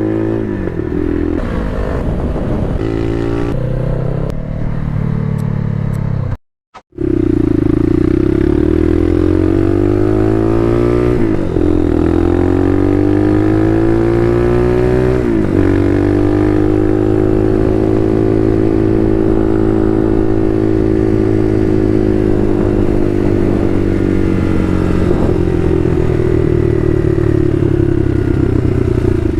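Bashan Motomax 250 supermoto engine accelerating through the gears, its pitch climbing and then dropping sharply at gear changes about 11 and 15 seconds in, then holding steady revs. The sound cuts out for about half a second around six and a half seconds in.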